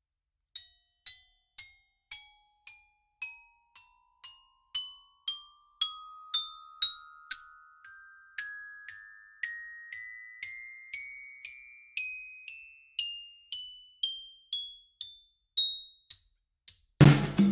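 Background music: bell-like struck notes about twice a second over a tone that rises steadily in pitch, then a full band with drums comes in just before the end.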